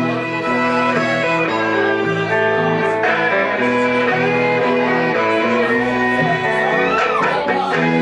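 Live band playing an instrumental passage on electric guitar, upright bass and fiddle, with a walking bass line under the guitar and fiddle.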